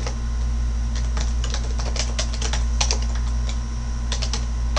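Typing on a computer keyboard: irregular runs of keystrokes as a terminal command is typed, with a short pause near the end. A steady low hum runs underneath.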